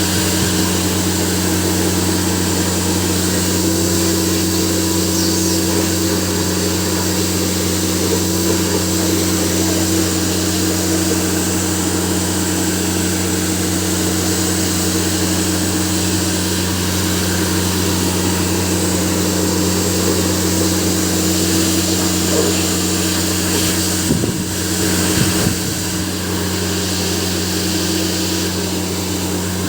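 Hair dryer running steadily, a constant motor hum under the rush of blown air, held over a keyboard's keys. The sound briefly wavers and dips about 24 seconds in.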